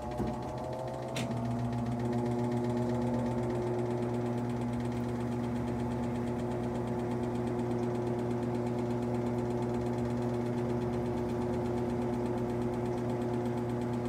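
Maytag top-load washer in its drain-and-spin cycle, the basket spinning with an even, steady motor hum. There is a click about a second in, after which the hum grows a little louder and holds a steady pitch. The spin is running smoothly with its new drive belt fitted.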